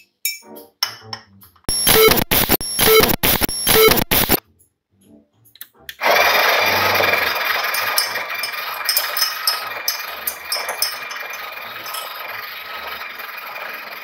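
Breville espresso machine's built-in burr grinder running steadily from about six seconds in, grinding coffee beans into the portafilter, slowly getting quieter. Before it, a few light clinks and a loud noisy clatter of about three seconds.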